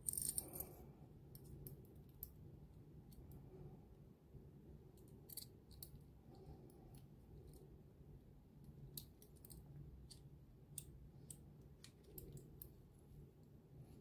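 Faint metal-on-metal handling of a bolt-action tactical pen: a short scrape-and-click cluster in the first second as the refill and its spring slide into the metal barrel, then scattered light ticks as the threaded halves are screwed together.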